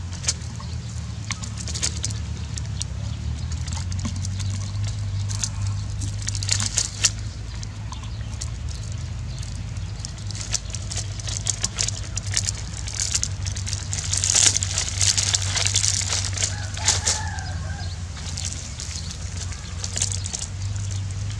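Dry palm fronds crackling and rustling as a puppy shifts and chews on them, over a steady low hum; a rooster crows briefly about sixteen seconds in.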